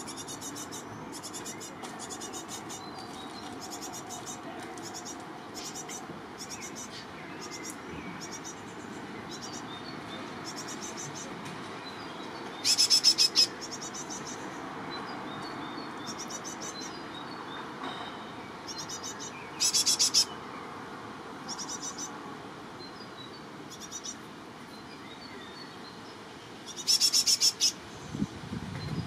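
Young tits calling with short, high, thin notes repeated about once a second. About 13, 20 and 27 seconds in come three much louder bursts of rapid high calling.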